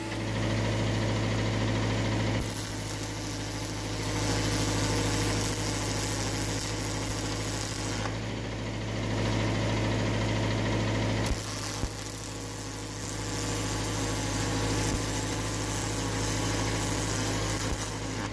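MIG welder welding aluminium: a steady low hum with a dense hiss of the arc over it, changing abruptly a few times.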